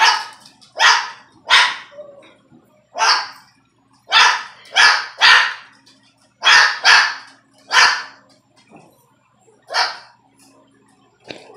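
A cockatoo mimicking a dog's bark and a small dog barking back, trading about a dozen sharp, short barks, some single and some in quick pairs.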